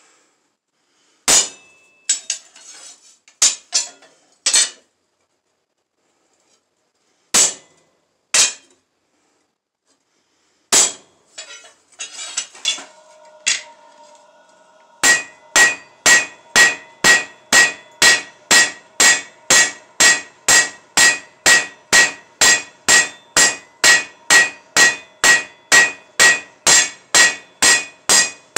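Hand hammer forging red-hot flat steel bar on an anvil: a few scattered metal clangs first, then from about halfway through a steady run of blows, about two and a half a second, each with a bright anvil ring.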